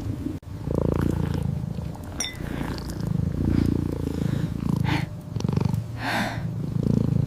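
Cat purring, a low rumble coming in uneven pulses.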